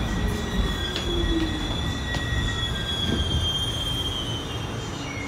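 R46 subway train rumbling along the rails with a high, steady wheel squeal that dips slightly in pitch near the end as it slows into a station. A few sharp clicks are heard along the way.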